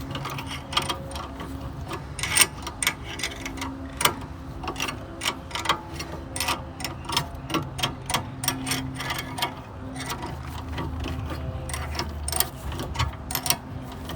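Ratchet wrench clicking in short, uneven runs as a brake caliper bolt is backed out.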